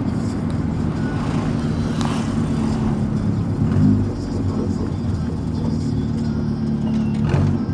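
Volkswagen Gol's engine rumbling through a loud aftermarket JK exhaust while the car is driven, a steady low drone. Its pitch and level shift briefly about four seconds in and again near the end.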